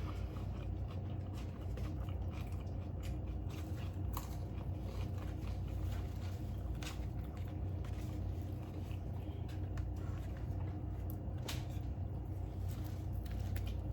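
A person chewing and biting food close to the microphone, with scattered sharp mouth clicks over a steady low hum.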